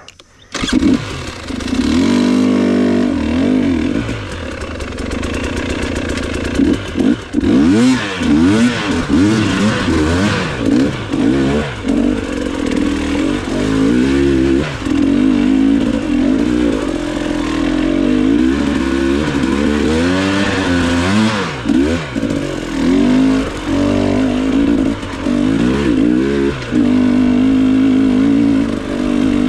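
GasGas enduro dirt bike's engine pulling away and then riding a trail. The engine pitch climbs and drops over and over as the throttle is opened and closed.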